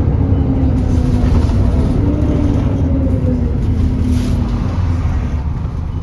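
Alexander Dennis Enviro400 E40D diesel bus running, a heavy low rumble with a whine on top that slowly falls in pitch.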